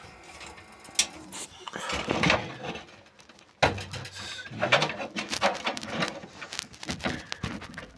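Irregular clicks, knocks and rustling of hands working on an old desktop PC's parts, with a louder stretch of handling from about three and a half seconds in.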